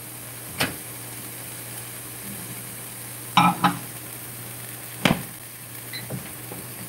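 Blue crabs sizzling softly in butter sauce in a frying pan over a steady low hum, with a few sharp clicks about half a second, three and a half and five seconds in.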